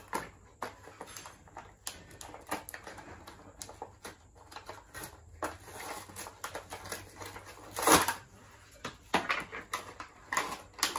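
Plastic and cardboard toy packaging crinkling and crackling as it is pulled open by hand, in many irregular small crackles with one louder crackle about eight seconds in.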